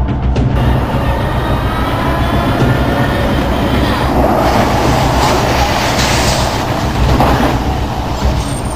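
Tank tracks and engine rumbling and clanking as the tracked armoured vehicle crosses the road, with a louder rushing noise swelling in the middle.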